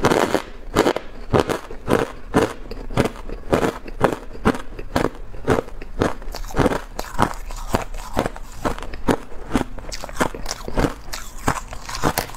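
Ice being crunched and chewed in the mouth, close to the microphone: a steady run of sharp, brittle crunches, about two to three a second.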